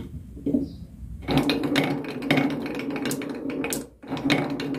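Glass marbles rolling down a wavy grooved wooden slope, clicking against each other and the wood. The rolling rattle starts about a second in and runs steadily, with a short break near the end.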